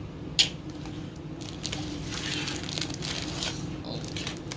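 Crinkling and crunching of a snack wrapper and crisp mini wafer sticks being handled and bitten, with one sharp snap about half a second in, followed by scattered small crackles.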